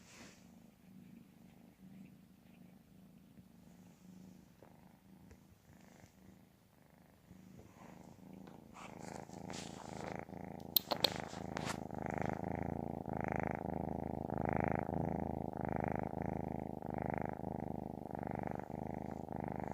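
Siamese cat purring, faint at first and then much louder and closer about eight seconds in, swelling and fading about once a second with its breathing. A few sharp clicks come near the middle.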